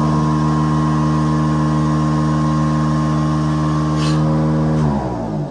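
Milking machine running with a steady motor hum, then switched off about five seconds in, its pitch sliding down as it winds down.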